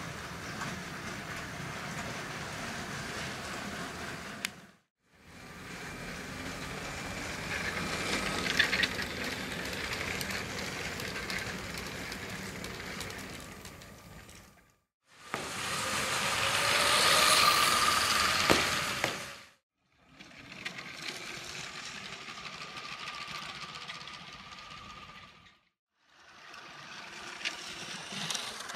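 Battery-powered Lego cargo trains running on plastic track: wheels rattling over the track joints with a faint steady whine from the electric train motor. The sound swells as a train passes close and fades away, in five separate stretches that cut off suddenly.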